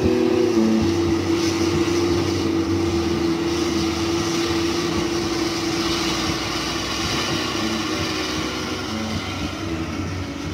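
Komatsu PC200 hydraulic excavators' diesel engines running as they dig wet mud, a steady mechanical drone with a held tone that fades about halfway through.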